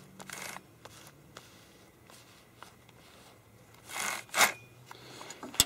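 A gloved hand working a freshly tensioned chainsaw chain on its bar: quiet handling with a few soft ticks, then two short rasping scrapes about four seconds in as the glove drags along the chain.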